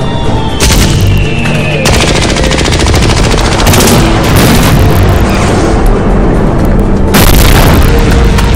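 Automatic gunfire in rapid bursts over background music: a short burst near the start, a long run of shots in the middle, and a loud burst near the end.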